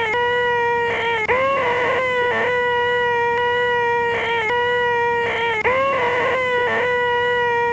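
A man's voice making the 'most annoying sound in the world', a loud 'eeehhh' drone held on one steady pitch. It is looped: it breaks off twice, about four seconds apart, then starts again with a quick upward scoop in pitch.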